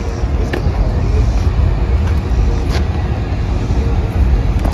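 Car engines running, a loud, steady low rumble, with a couple of brief clicks.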